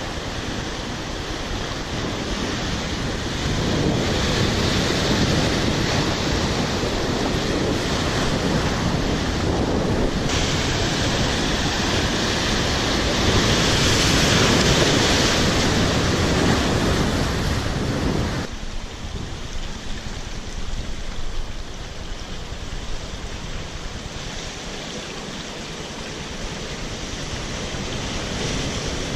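Sea surf breaking and washing over rocks, a steady rush of white water with wind buffeting the microphone. It is loudest in the middle and drops suddenly to a softer wash about two-thirds of the way through.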